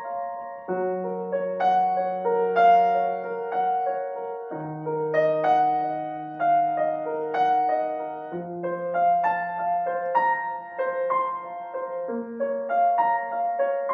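Solo grand piano played live: a flowing figure of repeated notes in the middle and upper range over held bass notes that change about every four seconds.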